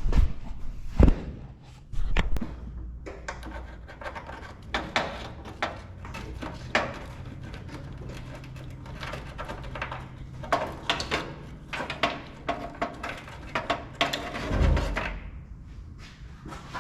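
Wiring harness being handled and pushed through a small hole: irregular rubbing, scraping and clicking of wires against metal and plastic, with a few heavier knocks, the loudest about a second in and near the end.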